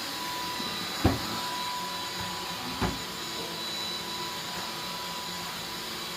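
Vacuum cleaner running steadily with a high whine, with two short knocks about a second and about three seconds in.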